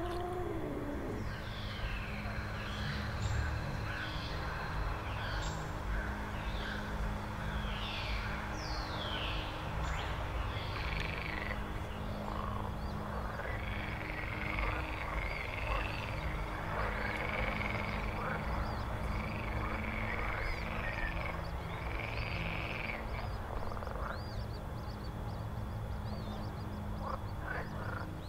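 Horror ambience track of a haunted swamp: a low steady drone with frog-like croaks and eerie animal calls over it. High calls falling in pitch come in the first half, then give way to longer held calls.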